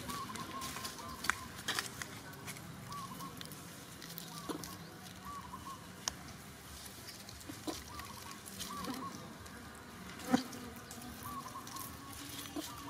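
Dry leaves crackling and rustling as macaques shift and handle them, with a sharper snap about ten seconds in. Short chirps repeat faintly in the background.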